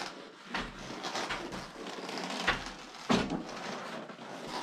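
Footsteps crunching and scuffing over loose debris on a bunker floor, a few irregular steps.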